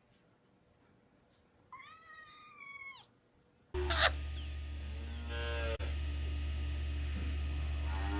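A cat meowing once, a drawn-out call about two seconds in. Then, abruptly, a loud steady low hum starts, with further lower animal calls over it.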